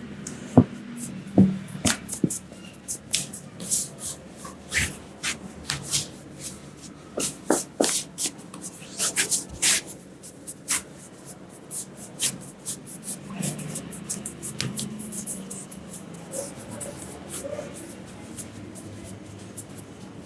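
A barber's hands slapping and tapping on the head and back during an Indian massage (champi): a quick, uneven run of sharp smacks, thickest in the first half and sparser later.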